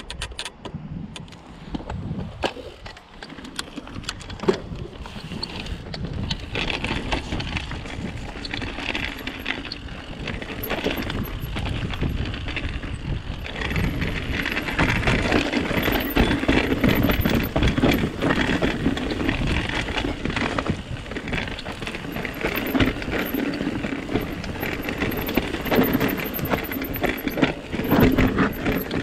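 Mountain bike riding down a rough, rocky trail: tyres on rock and dirt with constant clatter and rattling from the bike, getting louder as it picks up speed.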